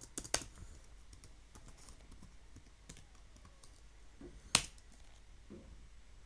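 Scattered key presses and clicks on a laptop, a few seconds apart, with the sharpest click about four and a half seconds in.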